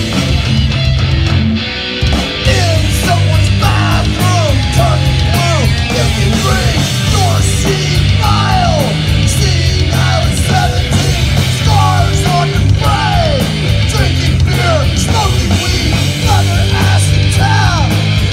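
Crossover thrash band playing live at full volume: distorted electric guitar, bass and fast drums, with shouted vocals. There is a brief break in the music about two seconds in.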